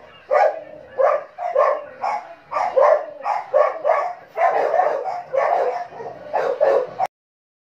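Dog barking repeatedly, about two to three barks a second, often in quick pairs, stopping abruptly about seven seconds in.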